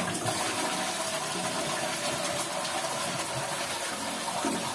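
Toilet flushing from a push-button cistern: a steady rush of water out of the tank into the bowl, with the newly fitted fill valve hissing as it starts refilling the tank.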